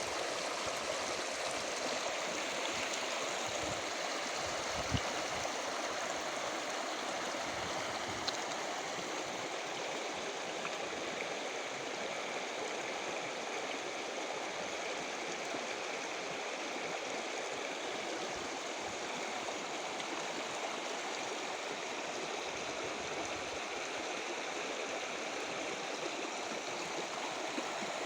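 River water rushing and gurgling over rocks, a steady, even flow.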